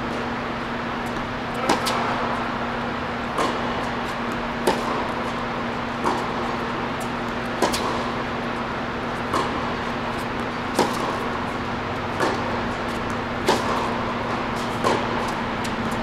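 Tennis ball struck back and forth in a baseline rally on an indoor court: sharp racket-on-ball pops about every one and a half seconds, louder ones alternating with fainter ones from the far end, over a steady low hum.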